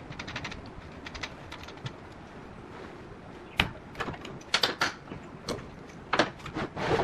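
Workshop handling sounds: a quick run of small clicks at the start, then from about halfway a series of sharp knocks and clanks, several in quick succession near the end. No power tool is running.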